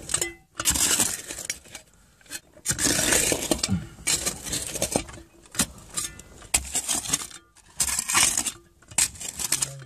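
Loose sand and grit being scraped in a series of irregular rough scrapes, about one every second, with short pauses between them.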